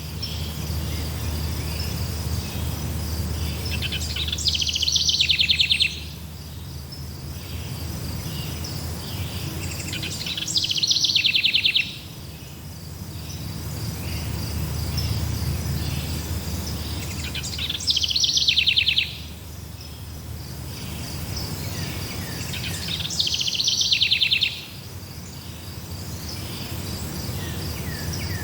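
Insects trilling steadily in a forest chorus. A louder, rapid buzzing trill comes in about every six seconds, lasts about two seconds and stops abruptly, over a low steady rumble.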